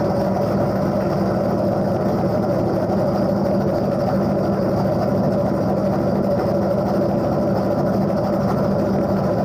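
Small-block Chevy V8 in a Camaro bracket car idling steadily, heard from inside the car's cabin.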